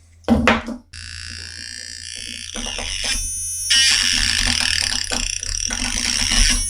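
Homemade battery-powered electronic sound circuit playing through its small speaker: a harsh, buzzing synth-like noise that starts about a second in. Its texture shifts about three seconds in.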